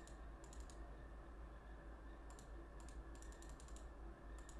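Faint, quick clicks of a computer mouse in about six short clusters, entering numbers on an on-screen calculator, over a low steady hum.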